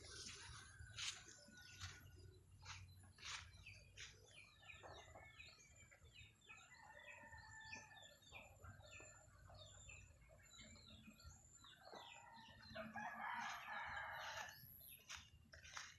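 Chickens on a farm, faint: hens clucking and calling, with a rooster crowing once near the end. Short clicks and chirps run throughout.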